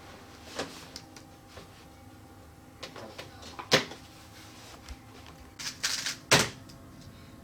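Scattered plastic clicks and clacks of a 3x3 speed cube being handled and turned, with a loud clack a little past halfway and a quick cluster of clicks ending in another loud clack near the end.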